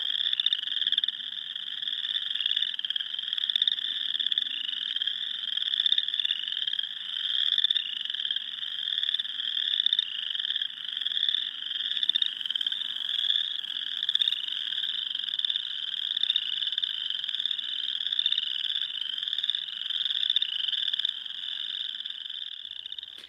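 Dense spring chorus of small frogs: many overlapping short, rising trilled calls repeating without pause. The uploader calls the chorus "the crickets".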